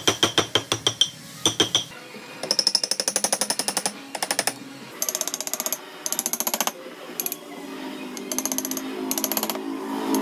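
A power tool working wood, chattering in short bursts of rapid strokes, a dozen or more a second, that stop and start.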